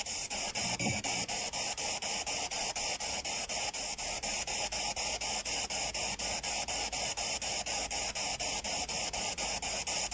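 Spirit box sweeping through radio stations: steady hissing static chopped by rapid, regular breaks about four times a second, with no clear words coming through.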